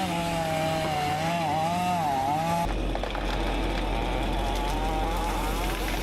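Chainsaw engine revving up and down, its pitch wavering as it works. About two and a half seconds in, the sound changes abruptly to a steady low drone with a rushing noise.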